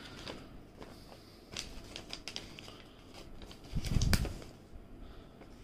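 Folded paper instruction manual being unfolded and handled: soft rustling and crinkling with scattered small clicks, and a louder bump about four seconds in.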